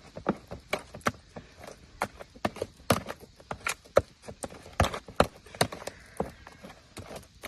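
Irregular sharp knocks and clacks of hard objects striking, several a second, with a few louder hits.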